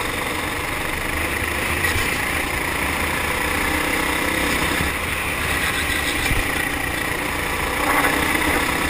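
Four-stroke kart engine running under throttle through corners, heard from onboard the kart.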